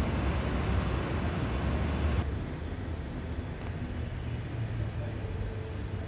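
Steady outdoor background rumble that drops abruptly to a quieter, lower hum about two seconds in.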